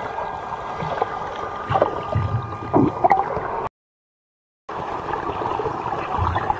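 Muffled churning and gurgling of pool water heard underwater as a swimmer strokes past, with bubbly sweeps a couple of seconds in. The sound cuts out completely for about a second near the middle, then the underwater churning resumes.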